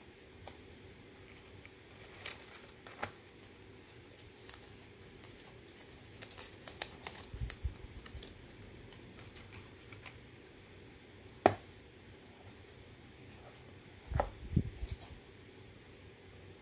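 Hands handling a paper-covered board wallet box and paper toys: card and paper sliding and rustling with scattered small clicks and taps. One sharp click comes about eleven seconds in, and a few dull thumps of board on the table follow near the end.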